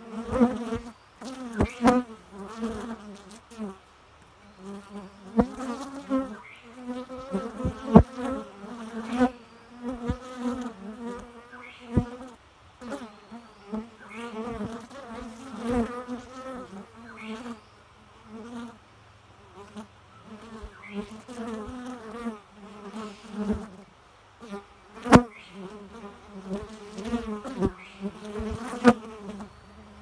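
Bees buzzing in flight around a wooden hive entrance, a low buzz that swells and fades over and over as individual bees pass close by. Sharp taps come here and there, the loudest about 8 and 25 seconds in.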